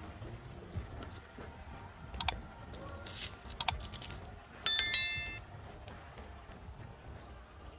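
Two sharp double clicks, then a short, bright bell-like ding that rings for about half a second.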